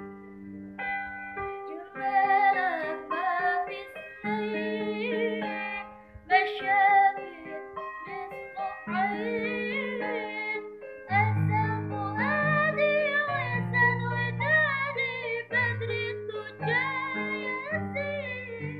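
Female voices singing an Islamic sholawat, the melody gliding and ornamented, over electronic keyboard accompaniment holding steady chords, with low bass notes joining about halfway through.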